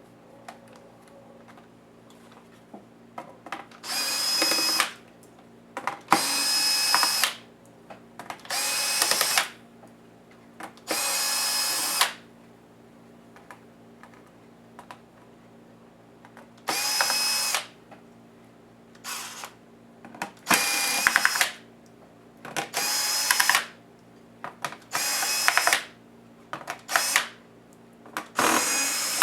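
Electric screwdriver backing out laptop case screws: about ten short runs of a steady motor whine, each about a second long, with pauses and light ticks between them.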